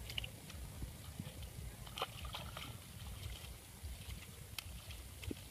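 Small splashes and sloshing of hands and bare feet in shallow, muddy puddle water, a few sharp splashes standing out, over a low rumble.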